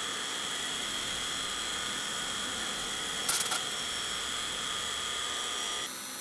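CNC milling machine cutting a metal plate with an end mill: a steady high whine over an even cutting noise, with a short clatter about three seconds in. The whine drops out just before the end.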